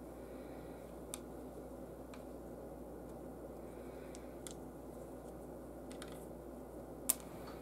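Small wooden game pieces set down one at a time on a table: a few sparse light clicks, the sharpest near the end, over a steady low hum.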